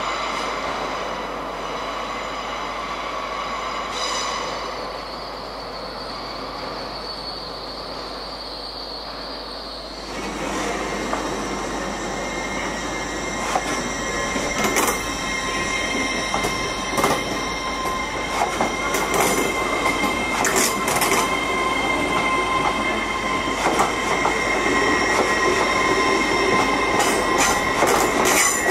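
A train running through the station on rails, its wheels squealing in steady high tones and clicking over rail joints. It gets louder about ten seconds in, with the clicks coming thick and uneven.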